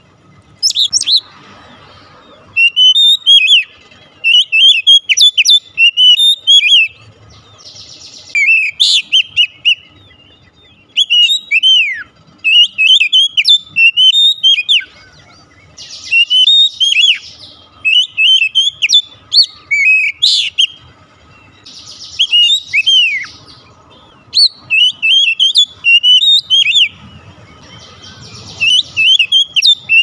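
Oriental magpie-robin singing loudly in repeated short bursts of quick, rising and falling whistled notes, with short pauses between, broken a few times by harsh, scratchy passages.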